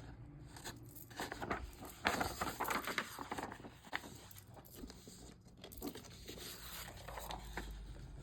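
Paper rustling and crinkling as sheets of journaling paper are handled and leafed through, with the loudest rustles about two to three seconds in.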